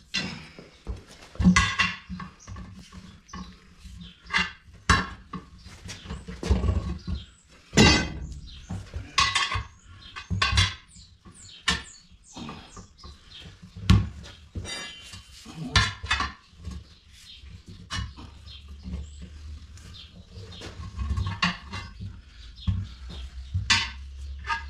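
Steel tire irons knocking and scraping against a truck's steel wheel rim as a tire is pried off the rim by hand, in irregular clanks.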